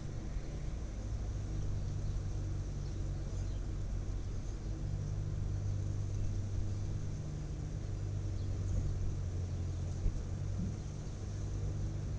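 A steady low hum from an engine or motor runs evenly throughout, over a light rumble, with one small click about ten seconds in.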